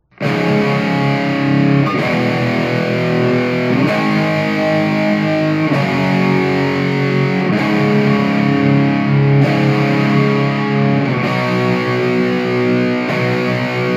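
Distorted electric guitar playing sustained chords that change about every two seconds, starting abruptly, with the deep bass cut off.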